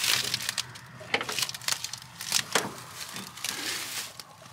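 Footsteps crunching through dry, dead grass and brittle weeds: an irregular series of crackling snaps.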